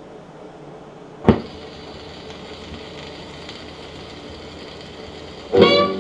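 Bogen VP-20 tube record player: a sharp thump about a second in as the stylus drops onto a 78 rpm shellac record. Steady surface hiss from the lead-in groove follows over a low amplifier hum. Near the end, the record's jazz band music starts with a reed instrument.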